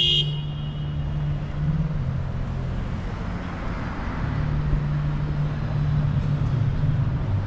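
City street traffic: a steady low engine hum from vehicles, with the noise of a passing vehicle swelling about three to four seconds in. A brief high-pitched ring sounds right at the start and fades within half a second.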